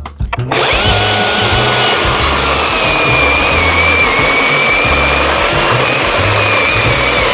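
Battery-powered chainsaw starting about half a second in and running at full speed as it cuts into a birch trunk, its high motor whine wavering under load.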